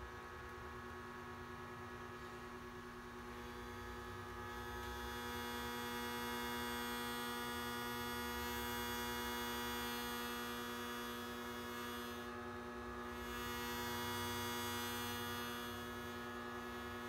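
A small 3 kW half-bridge induction heater running with a steel bolt heating to red in its work coil: a steady buzzing hum of several tones, with a high hiss joining about four seconds in.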